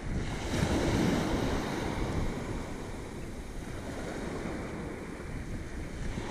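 Small ocean waves breaking and washing up the sand in the shore break, swelling louder about a second in, with wind buffeting the microphone.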